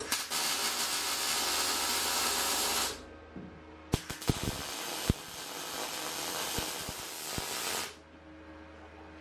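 MIG welding arc hissing on steel tubing in two runs: the first lasts about three seconds, and the second starts about four seconds in with a few sharp pops and stops near the end. A steady low hum runs underneath.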